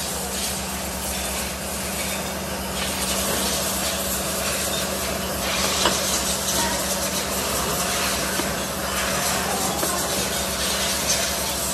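Multi-spindle drill press running with a steady motor hum, its ring of bits drilling the spoke holes through the flange of a cast aluminium motorcycle wheel hub, with a hiss of cutting and a few sharp clinks of metal.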